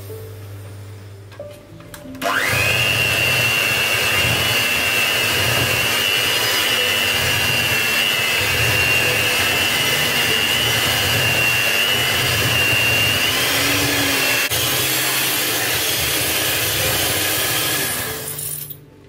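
Electric hand mixer running with a steady high motor whine as its beaters whip a thick chocolate cream in a glass bowl. It starts about two seconds in and stops just before the end, and its pitch lifts slightly a little past the middle.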